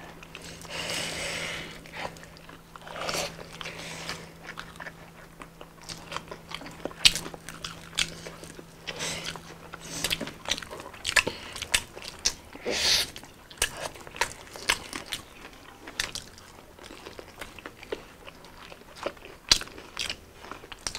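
Close-miked eating: crunchy bites into crispy fried chicken and chicken nuggets, then chewing, with many short sharp crackles and wet mouth sounds throughout.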